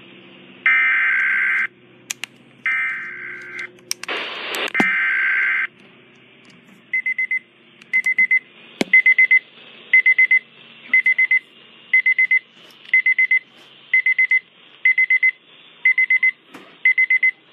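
Weather radio emergency alert: three one-second bursts of SAME digital header data screech out, with a brief burst of static between the second and third. A rapid pulsed beeping alarm follows, a quick cluster of beeps about once a second, signalling the weather warning.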